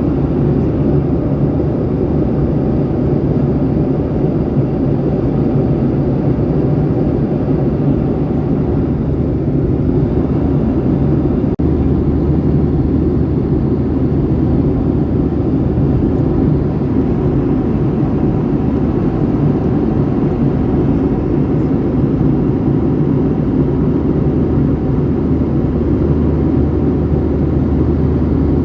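Steady jet-engine and airflow noise heard inside a Boeing 737 passenger cabin, a deep even rumble with a low hum and no change in pitch.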